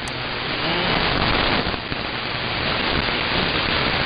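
AM radio audio from a web SDR receiver: steady hiss and crackling static from a weak, noisy broadcast signal. A single sharp click comes right at the start.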